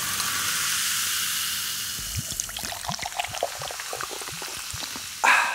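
Beer being poured into a glass: a fizzing hiss that slowly fades, with bubbly glugs and small pops from about two seconds in. A brief loud burst of noise comes just before the end.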